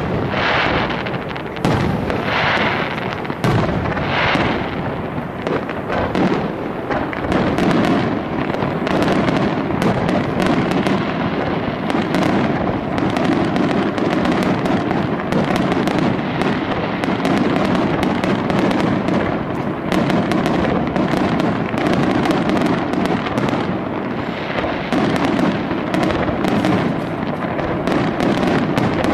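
Aerial fireworks display: a few separate shell bursts in the first seconds, then a dense, continuous barrage of bangs and crackling.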